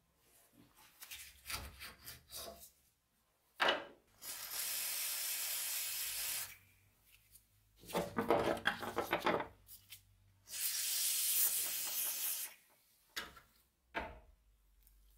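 An aerosol spray can hissing in two long bursts of about two seconds each, coating rusty old pruning shears with liquid. Between the bursts the metal shears knock and scrape as they are turned over on the bench.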